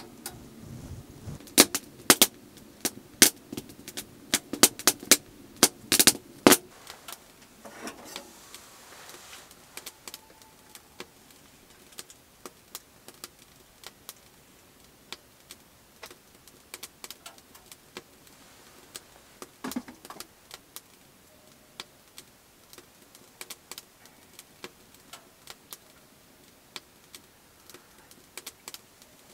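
Wood fire crackling in a small steel wood stove: a quick run of loud, sharp pops over the first six seconds or so, then quieter, scattered crackles.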